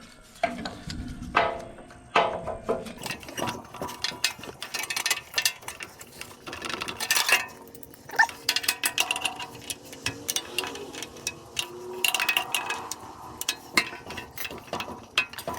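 Hand work on a small engine's fuel line: many clicks, light clinks and knocks of tools and fittings, with a few short squeaks as the rubber fuel line is worked onto the new fuel filter's barb.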